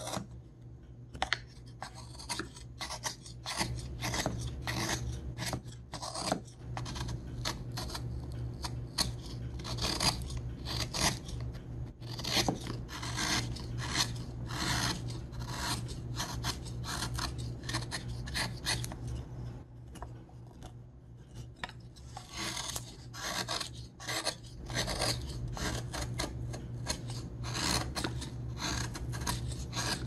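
Runs of short, quick rasping strokes from hand work on a craft piece, easing off briefly about two-thirds of the way through, over a steady low hum.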